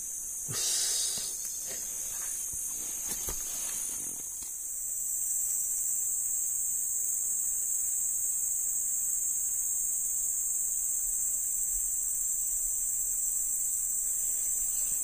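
Steady high-pitched drone of forest insects such as crickets, louder after the first few seconds. During the first few seconds there is rustling and handling noise as a small catfish is taken off the hook.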